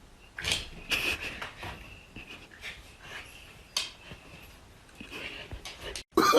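A kitten's faint noises: scattered short rustles with a few soft, high squeaks, cutting off suddenly near the end.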